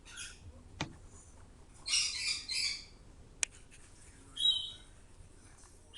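Small parrots calling: a harsh chirping burst about two seconds in and a short, higher call a couple of seconds later, with two sharp clicks in between.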